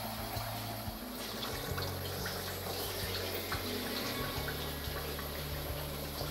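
Raw chicken pieces frying in hot oil in a karahi: a steady sizzle with small crackles.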